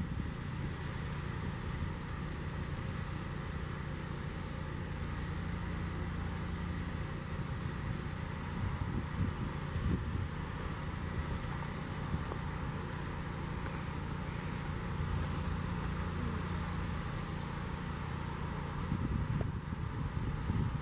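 Steady low rumble of a freight train's diesel locomotives approaching slowly, mixed with passing road traffic.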